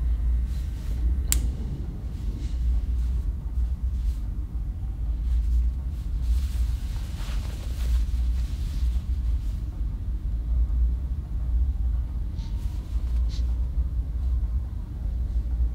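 A steady, deep low rumbling drone, the horror film's sound design, with one sharp click about a second in and a couple of faint ticks near the end.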